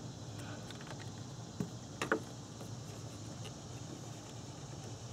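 Faint plastic clicks and scrapes as an automotive cooling fan relay is worked loose from its socket in the under-hood relay box, the sharpest click about two seconds in, over a steady low hum.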